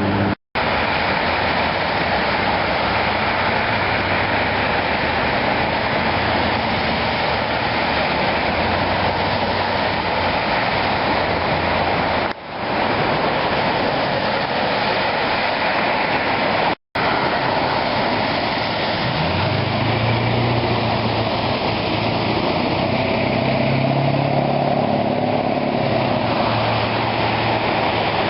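Loud, steady rush of flowing floodwater, with a low engine-like hum joining in for several seconds past the middle.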